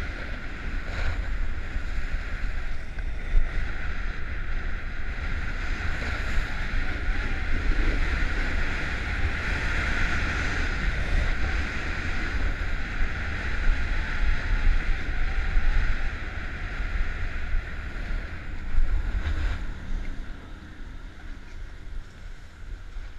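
Wind rushing over a GoPro action camera with steady scraping over packed snow during a fast run down a groomed ski slope. The rush dies down near the end as the rider slows to a stop.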